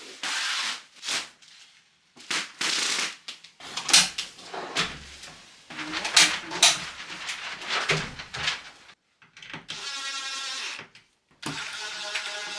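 Wardrobe parts being handled: boards sliding and scraping, with rustling and a few knocks. About ten seconds in a steady buzz starts, runs in two spells and carries on past the end.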